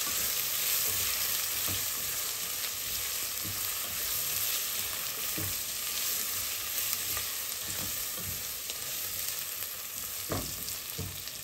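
Raw white rice frying in hot oil with chopped onion, garlic and red bell pepper, a steady sizzle as it is stirred, with occasional knocks against the pan, the clearest near the end. The rice is being sautéed without browning before the water goes in.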